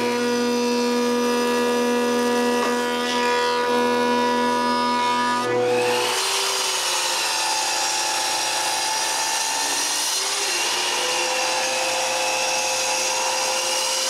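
A thickness planer running with a steady hum. About five and a half seconds in, this gives way to an electric miter saw running and crosscutting small wooden boards, its whine dipping slightly and recovering as the blade goes through the wood.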